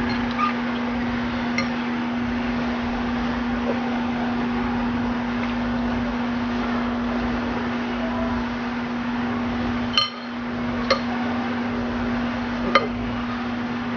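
A steady hum and hiss, with a few sharp clinks of a spoon against a dish during eating; the loudest clink comes about ten seconds in.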